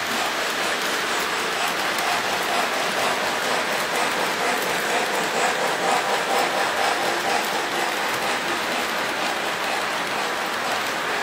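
Three-rail O-gauge model train running past on its track: a steady rushing clatter of wheels and motor with many faint rapid clicks, a little louder midway as the cars pass close.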